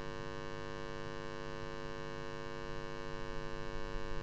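Steady electrical mains hum from the microphone and sound system, a buzz of many steady tones held at one level.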